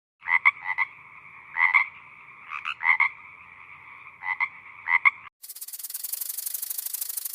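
Animal calls: a pulsing, croaking call held in two steady pitches for about five seconds, then a fast, high-pitched trill of rapid even pulses for about two seconds.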